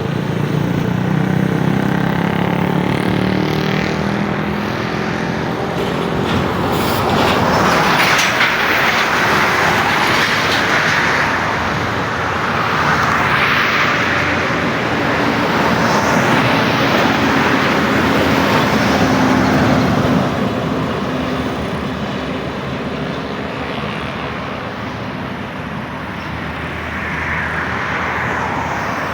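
Bus terminal traffic: bus engines running with a steady low hum while vehicles pass, the sound swelling and fading about four times.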